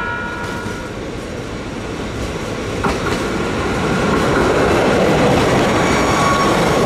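A JR Hokkaido KiHa 261 series diesel express railcar pulls in past the platform. A horn blast trails off about a second in, then the running noise of the train's engines and wheels grows louder as the cars come alongside and pass close by.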